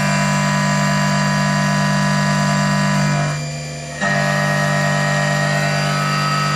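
Milling machine cutting metal with a carbide end mill: a loud, steady singing tone made of several pitches at once. It drops away briefly about three and a half seconds in, then comes back in full.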